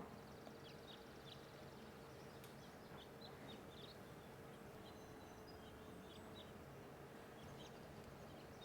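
Near silence: faint outdoor ambience with scattered short, high chirps and a faint steady hum.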